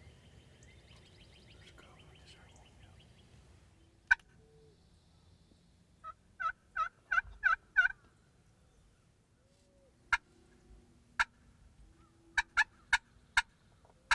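Turkey yelps and clucks: one sharp cluck, a quick run of about five yelps, then scattered single clucks and a short burst of four near the end.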